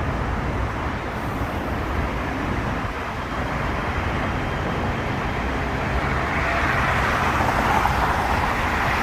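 A light-rail train running, a steady rumble of wheels on track that swells into a louder hiss about six seconds in.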